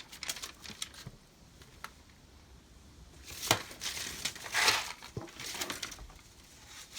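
Handling noises: scattered clicks and knocks with a short rustle, the sharpest knock about three and a half seconds in, as the finished cooler-and-fan air conditioner and its cord are handled.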